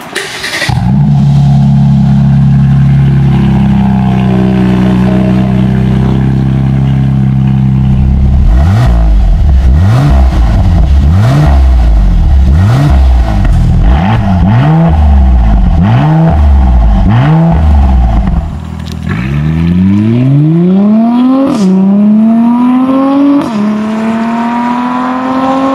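Mercedes-AMG C43's 3.0-litre twin-turbo V6 through a Fi Exhaust valvetronic catback. It idles steadily for about eight seconds, then is blipped in about ten quick revs, roughly one a second. Near the end it accelerates hard, its pitch climbing through three upshifts.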